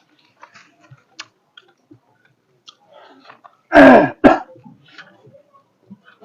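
Faint chewing and small mouth clicks of someone eating, broken a little under four seconds in by a loud two-part throat clearing: a longer rasp, then a short one.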